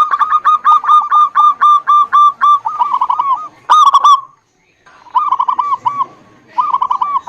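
Zebra dove (perkutut) cooing: runs of rapid, repeated notes around a single pitch, with a brief pause about two thirds of the way through before the song resumes.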